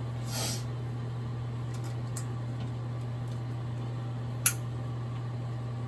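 Electric hair clipper buzzing steadily in a low hum, with a short rustle near the start and one sharp click about four and a half seconds in.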